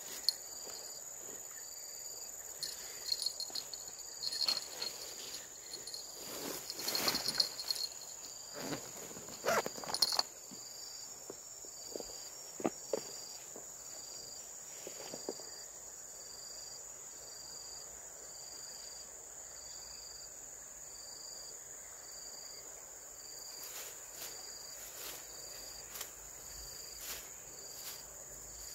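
Insects trilling: a continuous high whine with a second, pulsed high chirp repeating about once a second. Scattered knocks and rustles during the first ten seconds or so.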